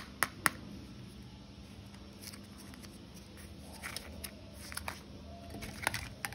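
Plastic Kinder Joy egg shells clicking and knocking against each other and the glass bowl as they are handled. There are sharp clicks at the start, a few more around four to five seconds in, and a quick cluster near the end.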